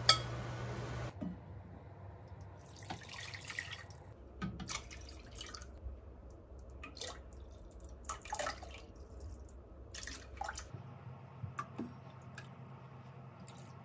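Liquid seasonings (mirin, then tuna sauce) poured from bottles over a spoon, trickling and dripping into a pot of soy sauce in several short pours. It opens with a pot boiling and a sharp clink of metal tongs, cut off about a second in.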